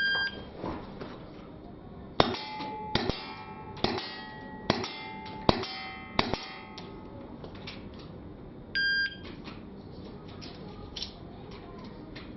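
A shot-timer buzzer beeps, then six revolver shots come over about four seconds, each followed by a short metallic ring from the target it hits. The buzzer beeps again about nine seconds after the first, marking the end of the 9-second time limit for six shots at 8 m.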